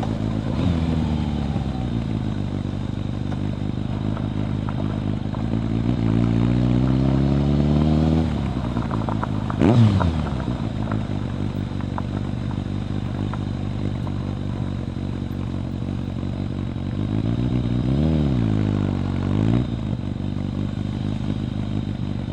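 Kawasaki ZRX1100 inline-four engine running through a Yoshimura exhaust. The revs climb for a couple of seconds and then drop off sharply. Two quick throttle blips rise and fall about ten and eighteen seconds in, and the engine runs at a steady pitch between them.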